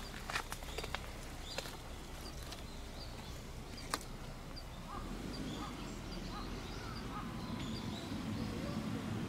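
Outdoor ambience with birds calling faintly in the distance in short repeated chirps, a few sharp clicks in the first half, and a low rumble that grows louder from about halfway.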